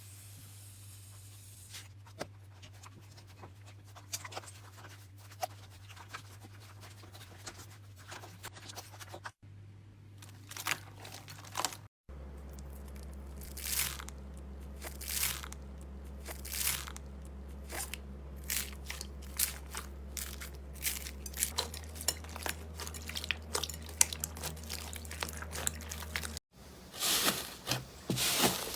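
Slime being handled and pressed by hand: an irregular string of short, crunchy crackles and pops over a steady low hum. The sound changes abruptly a few times as one clip gives way to the next.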